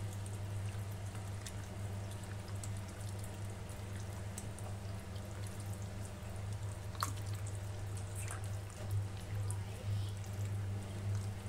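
Gloved hand mixing marinated chicken pieces with potato starch in a stainless steel bowl: faint wet squelches and small clicks. A steady low hum runs underneath.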